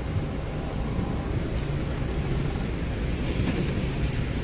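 Argo Parahyangan passenger coaches rolling past close by: a steady rumble of wheels on the rails.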